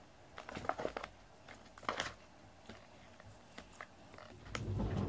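Cardboard box scraping and rustling as a cat moves and paws inside it at a dangled teaser toy: scattered short clicks and scrapes, then a low thud near the end as the cat rises in the box.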